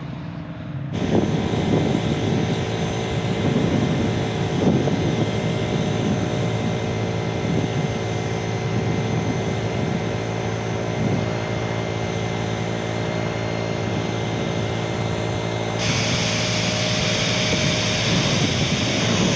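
Pressure washer running with its water jet hissing; the spray comes on strongly about a second in over a steady motor drone, and turns brighter and louder near the end.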